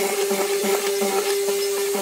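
Benchtop hollow-chisel mortiser running, its motor giving a steady hum as the spinning auger and square chisel cut into the wood, with a faint pulse about three times a second.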